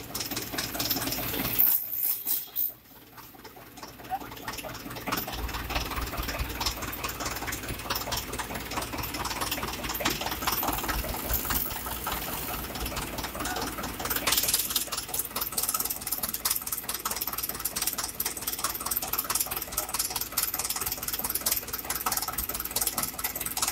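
Tractor's diesel engine running with a steady, rhythmic clatter while the tractor drives along. The level drops briefly about two seconds in.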